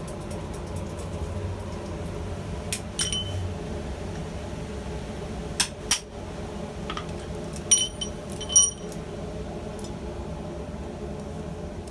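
Hammer blows striking a hot rivet held in a rivet header: about six light metallic strikes, each with a short ring, coming singly and in pairs at uneven spacing.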